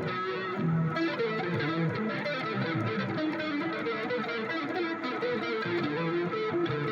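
Music from an instrument patch with a phaser effect, a 'phased pad', playing a steady stream of changing notes without pauses.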